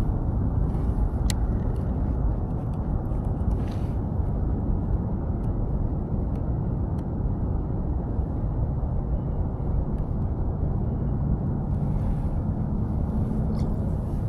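Steady low wind rumble on the microphone, with a few faint clicks and short stretches of water hiss.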